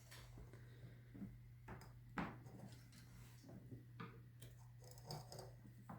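Near silence over a steady low hum, with a few faint small clicks and taps of tools being handled during soldering, the clearest about two seconds in.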